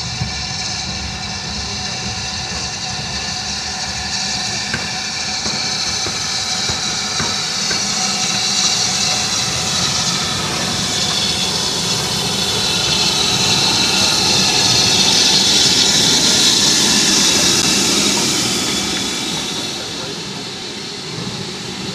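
Steam locomotive drawing its train past at close range, its steam hiss and running noise growing louder to a peak about two-thirds of the way through, then fading.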